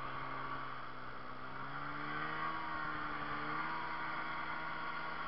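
Snowmobile engine running under way across snow. Its pitch rises about two seconds in and then holds steady, over a constant hiss of track and wind noise.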